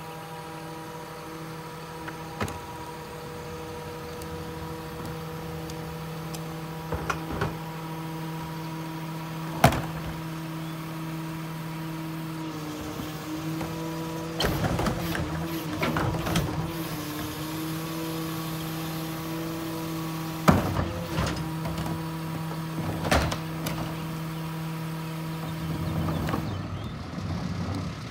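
E-Z Pack Apollo rear-loader garbage truck running with a steady hum while its cart tipper lifts and dumps a trash cart into the hopper. Metal clanks and knocks come from the cart and tipper, most of them near the middle, and the hum wavers while the cart is dumped.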